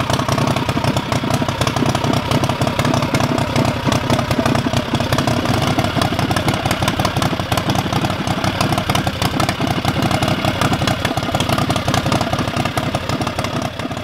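Predator 670cc V-twin engine, built with a performance cam, running steadily through open headers with rapid, even firing pulses.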